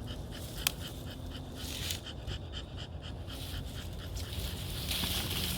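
A dog panting rapidly and steadily, with one sharp click about half a second in.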